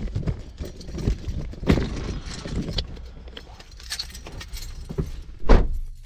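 Handling noise inside a car: rustling with scattered clicks and knocks, and one heavy thump about five and a half seconds in.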